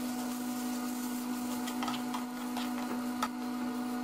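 Metal spatula stirring and scraping through a flour-dusted chicken filling in a steel frying pan, with scattered sharp clinks against the pan, over a steady humming drone.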